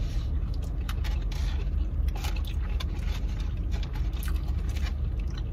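Steady low hum of a car running, heard inside the cabin, with scattered crinkles of a paper food wrapper and chewing sounds.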